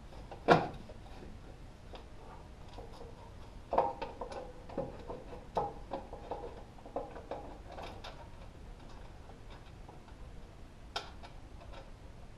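Metal clanks and clicks from tools and parts being worked on a flail mower's gearbox during assembly. The loudest is a sharp clank about half a second in. A burst of knocks with a short metallic ring comes about four seconds in, followed by lighter irregular clicks and one sharp click near the end.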